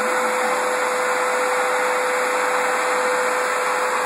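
Canister vacuum cleaner running steadily: an even rush of air with a constant whine from the motor.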